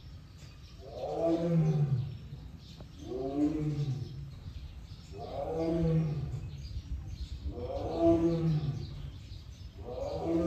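Siberian (Amur) tiger calling over and over: five roaring calls of about a second each, spaced roughly two seconds apart, each falling in pitch.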